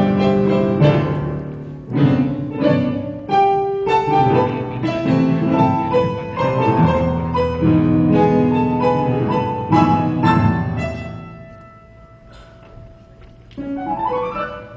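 Instrumental music led by piano, with low bass notes underneath. About three-quarters of the way through it thins to a quieter held note, and a run of rising notes starts near the end.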